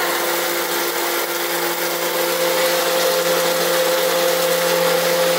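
Submersible sewage grinder pump running in its pit: a steady motor hum with several constant tones over the rush of churning water.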